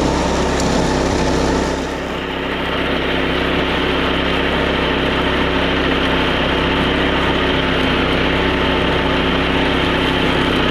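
Small petrol engine running steadily. Its sound dips briefly about two seconds in, then runs on evenly with less high hiss.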